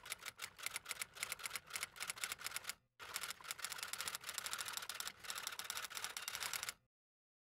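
Typewriter-style typing sound effect: rapid key clicks, about eight a second, with a short break partway through, stopping shortly before the end.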